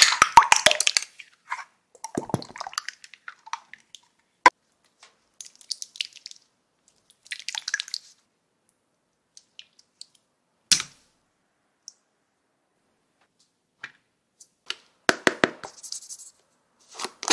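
Plastic slime jar clicking and crackling as its screw lid is handled, then short bursts of sticky slime sounds separated by silent gaps, with a few sharp clicks. Near the end, slime squishing as a hand squeezes it.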